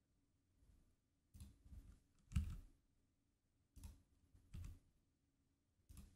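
Faint, scattered clicks of a computer mouse and keyboard keys, about six separate clicks with quiet between them.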